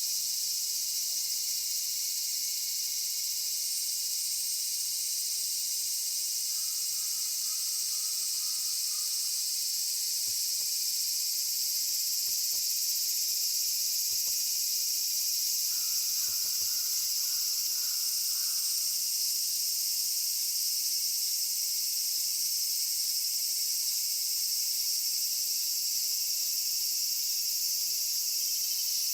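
Steady, high-pitched chorus of summer insects droning without a break. Twice in the middle, faint short tones sound under it.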